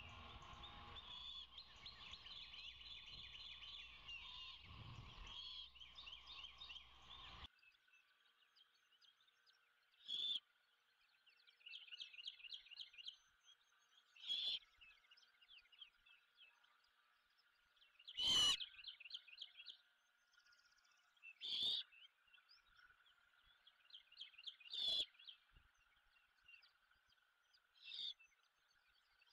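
Faint outdoor birdsong: small birds singing short, repeated high trills, broken by about six sharp, brief calls or clicks, the loudest a little past halfway. For the first several seconds a steady background hiss and hum lies under the chirping, then cuts off suddenly.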